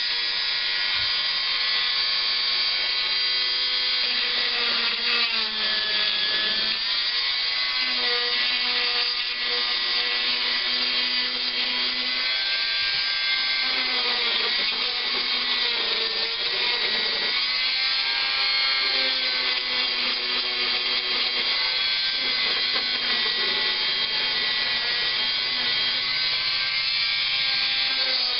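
Small high-speed electric rotary tool sanding the plastic of a laptop case. It runs as a steady whine whose pitch sags and recovers several times as the bit is pressed into the work, over a rubbing, grinding noise.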